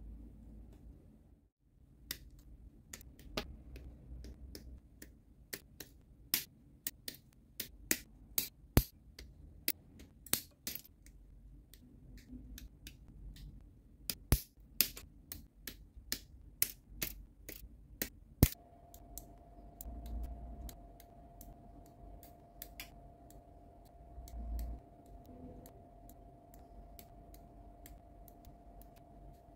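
Godhand hobby nippers snipping plastic model-kit parts off their runners: a string of sharp clicks and snaps, thickest in the first half, with plastic parts being handled between cuts. About two-thirds of the way through a faint steady hum comes in and holds.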